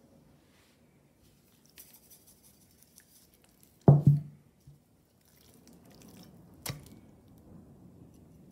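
Raw pork cutlets handled on a plate: soft wet slapping as the meat is lifted and turned over. A pair of loud thumps come about four seconds in, and a sharper knock near seven seconds, as a cutlet is set down on the plate.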